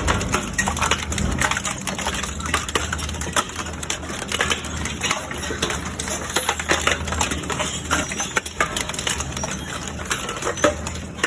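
Wood cracking and splintering as a chipper or grinder crushes logs, with many sharp snaps over a steady low engine hum.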